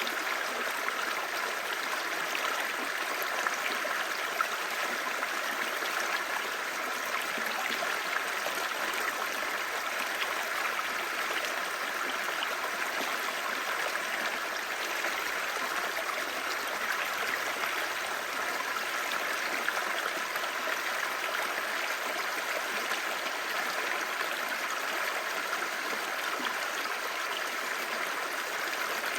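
A clear stream babbling steadily, running water with an even, unchanging rush.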